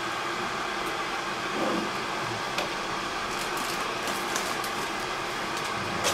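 Soft scraping and rustling of a minced-meat patty being rolled and pressed in dry breadcrumbs on a plate, over a steady background noise.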